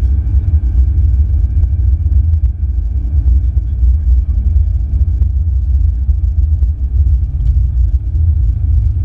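Ferrari 488 GTB's twin-turbo V8 and road noise while driving, a steady low rumble with no big revving.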